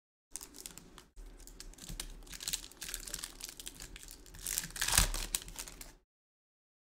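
Foil wrapper of a Topps Chrome trading-card pack crinkling and tearing as it is opened by hand. The crackling is loudest about five seconds in and stops abruptly about a second before the end.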